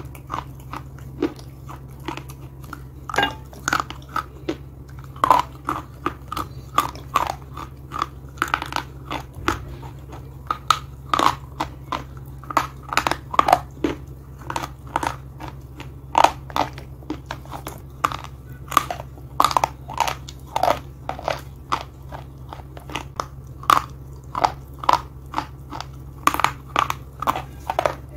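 Slate and clay pieces being bitten and chewed right at a microphone: a steady, irregular run of sharp, dry crunches, one to a few a second, over a constant low hum.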